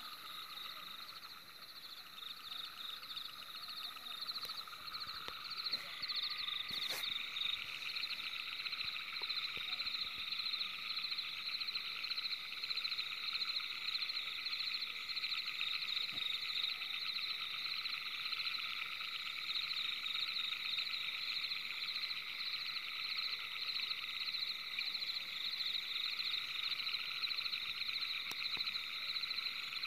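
Steady night chorus of frogs calling in fine, rapid trills at several pitches, growing louder about six seconds in.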